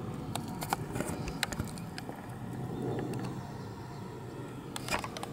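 Scattered sharp clicks and knocks from handling and footsteps as a nest box is reached and opened, over a steady low background rumble.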